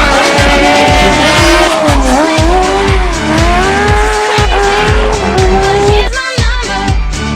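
Intro music with a steady beat, about two a second, under a held pitched line that dips and climbs again; there is a break about six seconds in.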